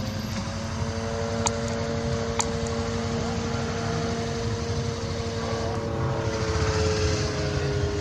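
Rotax 582 two-stroke engine and propeller of a Loehle 5151 Mustang ultralight replica flying past, a steady drone whose pitch sinks slowly as it goes by.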